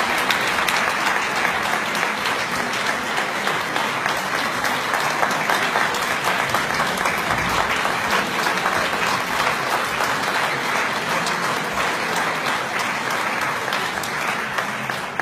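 Concert audience applauding steadily, many hands clapping together.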